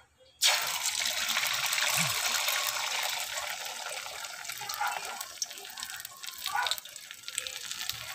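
Beaten egg hitting hot oil in an aluminium wok and sizzling: a sharp hiss starts about half a second in, loudest at first, then eases to a steadier frying sizzle.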